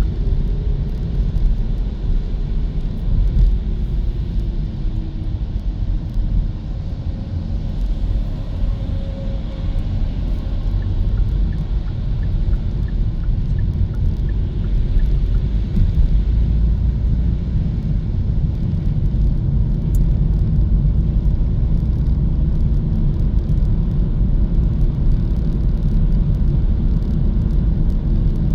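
Steady low road rumble of a Hyundai Kona EV driving along.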